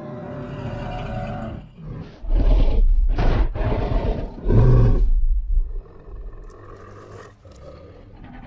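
Giganotosaurus creature sound effect: a low growl builds into a loud roar in four pulses about two seconds in, then sinks back to a quieter rumbling growl.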